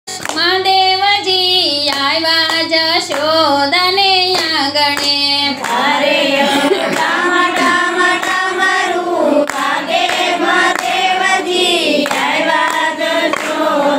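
A Gujarati devotional kirtan sung by a woman, one voice alone for the first five or six seconds, then several voices singing together. Hand claps keep the beat.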